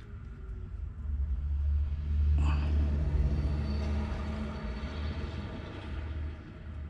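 Low engine rumble of a passing vehicle, building about a second in, loudest around the middle and fading toward the end. A brief click about two and a half seconds in.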